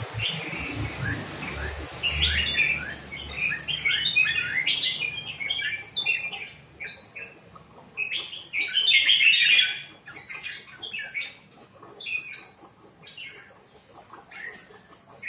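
Red-whiskered bulbuls singing in the Hóc Môn song style: bursts of quick, bright chirping notes, busiest and loudest in the middle, then sparser phrases toward the end. A low rumble is heard briefly at the start.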